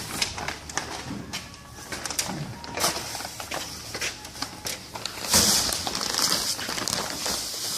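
Powder bags being handled and emptied into a vertical mixer: scattered clicks and plastic rustles, then from about five seconds in a steady hissing pour of granular material.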